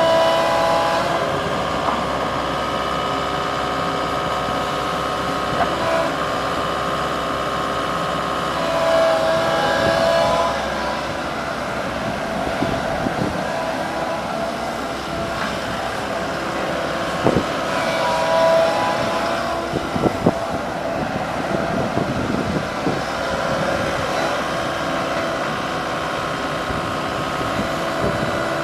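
Diesel engine of a Komatsu PC138USLC-10 excavator running steadily. A higher whine swells about three times, and a few sharp knocks come about two-thirds of the way through.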